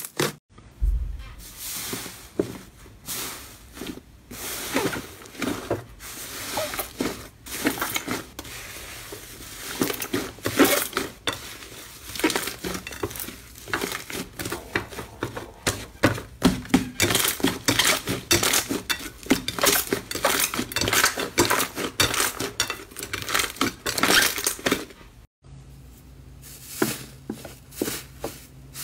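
Slime being squeezed and worked close to the microphone, giving a dense run of rapid crackles, pops and sticky clicks. The sound drops out briefly twice, where one clip gives way to the next.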